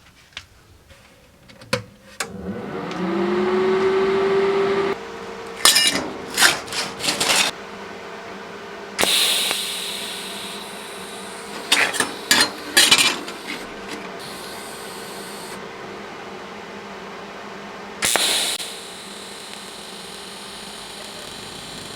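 An electric machine is switched on, and its motor or fan spins up to a steady hum. Several short bursts of hissing and clicking come over it, about a second each.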